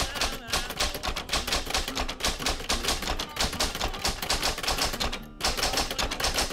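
Typewriter keys clacking in a fast, continuous run of keystrokes, with one brief break a little after five seconds in.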